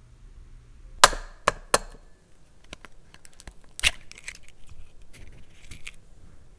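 An egg knocked against the rim of a ceramic bowl: three sharp knocks in quick succession about a second in, another hard knock a few seconds later, then light clicks and taps as the shell is pried open over the bowl. The repeated knocks come from a clumsy crack that drops a piece of shell into the bowl.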